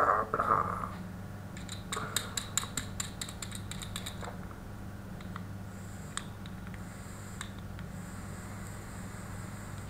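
Coil of a Trident dripping atomizer on a Manitou vape mod crackling and popping in a fast run for about two seconds while it is fired and drawn on: freshly dripped e-liquid sizzling on the hot coil. A soft hiss of exhaled vapour comes near the end, over a steady low hum.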